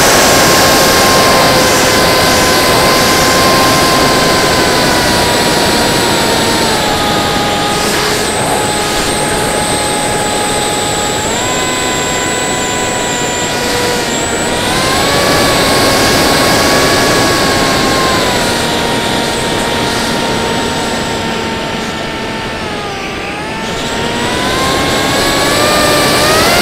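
Electric motor and 5045 bullnose propeller of a Theory W FPV flying wing in flight, heard from its onboard camera: a steady whine that steps up and down in pitch with the throttle, sinking lowest near the end and then climbing again, over a constant rush of wind on the microphone.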